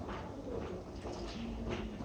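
Ambience inside a Tobu 70000-series train standing at a subway platform during an extended stop: a low steady rumble with scattered light knocks and faint indistinct sounds, and no train movement.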